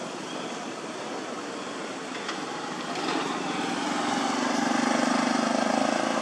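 Steady outdoor background noise with a motor vehicle's engine hum that swells from about three seconds in and is loudest near the end, as a vehicle passes.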